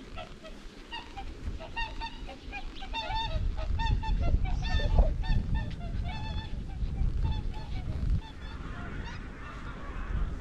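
A flock of wild geese in flight, honking with many short calls overlapping; the calls thin out after about eight seconds. Wind rumbles on the microphone underneath.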